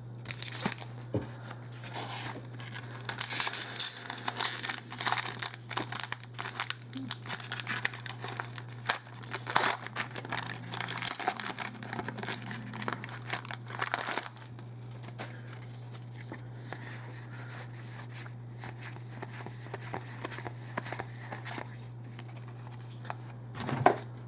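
Foil wrapper of a Magic: The Gathering Origins booster pack being torn open and crinkled, a dense run of crackling and tearing for about the first fourteen seconds, then only soft occasional rustles.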